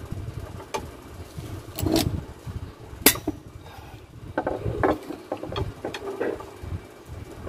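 Socket wrench working a bolt on the crankcase side cover of a small gasoline engine: scattered metal clicks and clinks at irregular intervals, the sharpest about three seconds in, over a low background rumble.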